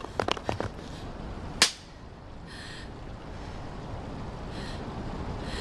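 Quick footsteps on paving that stop within the first second, then a single sharp crack.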